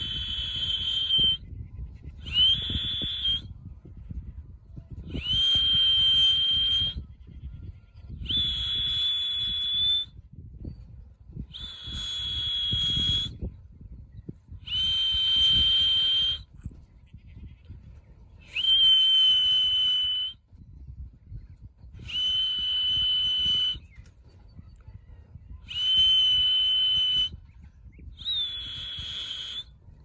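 A whistle blown in about ten long, steady, high-pitched blasts, roughly one every three seconds. It is the fancier's call to bring racing pigeons down off the loft roof and in through the trap.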